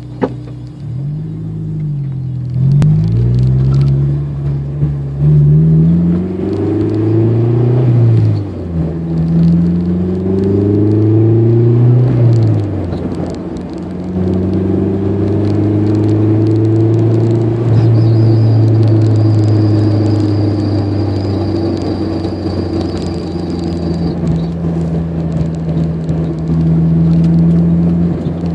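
Honda S2000's four-cylinder engine and drivetrain, the revs rising and falling several times under throttle and lift-off, then holding fairly steady before dropping away near the end. A faint high whine joins in the middle of the steady stretch. The owner hears a pop-pop noise from the transmission area on lift-off in gear, which he takes for a bearing going out at one end of the driveshaft.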